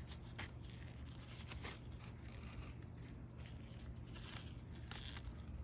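Faint rustling and a few light clicks of plastic-sealed gold bar assay cards being handled and propped upright by a gloved hand.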